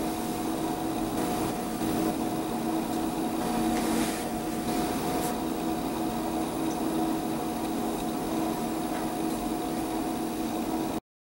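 Steady hum of a running household appliance with a hiss over it, holding a few fixed tones; it cuts off suddenly near the end.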